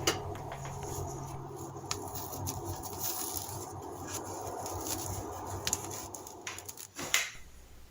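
Faint clicks and scraping of a stick vacuum's brush roller assembly being handled and taken apart by hand, a few light clicks spread through, over low steady background noise.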